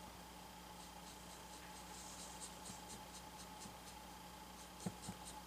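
Faint, quick scratching of a small flat paintbrush stroking acrylic paint onto the painted surface while laying a base coat, about three or four strokes a second, over a steady faint hum. A light tap near the end.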